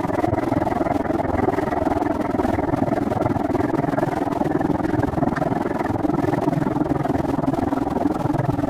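Steady, dull noise of riding a bicycle along a paved trail: wind on the microphone and the rolling of the tyres, with no clear tone or breaks.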